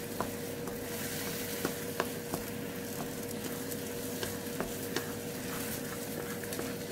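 Tomato and egg masala sizzling in a non-stick pan over a gas flame, stirred with a wooden spatula that scrapes and knocks against the pan every second or so. The masala is being fried down (bhuna) on a full flame until the oil separates.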